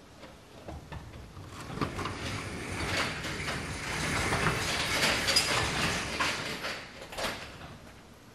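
Overhead sectional garage door rolling open, rattling and clicking as it rises.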